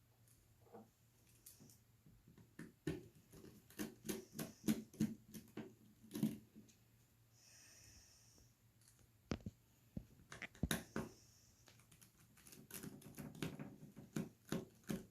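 Bursts of small, sharp clicks and taps from a precision screwdriver and tiny screws being undone from a phone's rear frame and set down on the work surface, with a brief hiss about eight seconds in.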